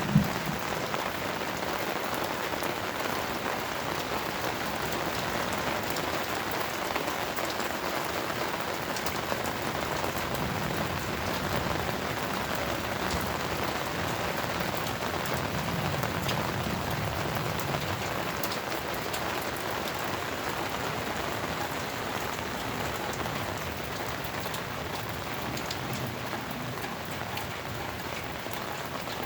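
Steady rain falling: an even hiss full of small drop ticks, with one sharp tap right at the start.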